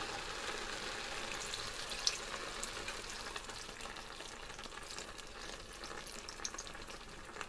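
Minced beef and onions sizzling in a hot frying pan as beef stock is poured in: a steady hiss with scattered crackles, easing off slightly towards the end.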